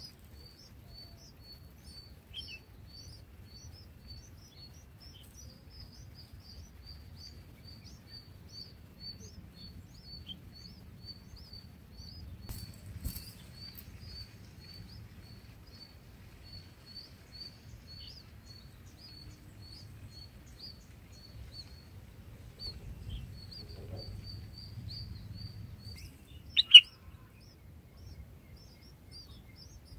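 Red-whiskered bulbul nestlings begging at the nest: thin, high chirps repeated steadily, two or three a second. About 27 seconds in there is one loud, sharp bird call.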